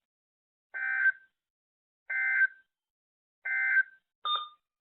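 NOAA Weather Radio SAME end-of-message signal: three short digital data tones about a second apart, which mark the end of the Required Weekly Test broadcast. A shorter, higher blip follows near the end.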